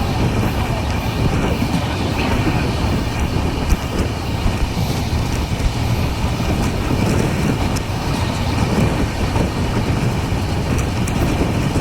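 Passenger train running along the track: a steady, loud rumble of coach wheels on the rails with scattered faint clicks.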